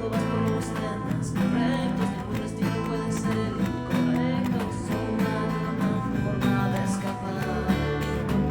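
A song's demo recording playing: guitar-led music with a steady beat and a moving bass line.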